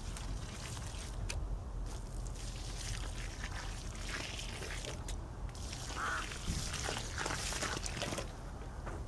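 Liquid pouring from a plastic watering can into a freshly dug hole in loose soil, trickling and splashing, with a few short, sharp sounds in the middle. The pouring stops near the end as the can is lifted away.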